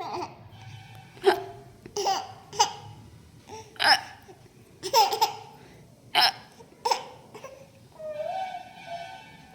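A baby hiccupping, about seven sharp hics roughly a second apart, each mixed with little giggles. Near the end comes a longer drawn-out voice sound.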